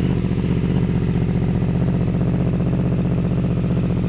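Yamaha R1's inline-four engine idling steadily, warming up before a ride.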